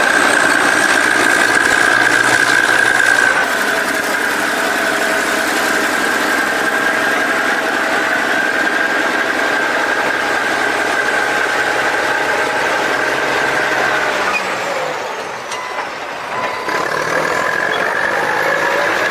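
Bulldozers working: heavy diesel engines running with a steady high-pitched whine. The sound changes abruptly about 3.5 and 14.5 seconds in and dips briefly near the end.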